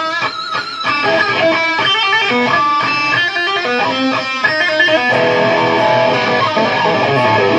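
Rock band music led by guitar. A guitar picks out a changing run of notes, and about five seconds in the sound fills out into fuller, held chords.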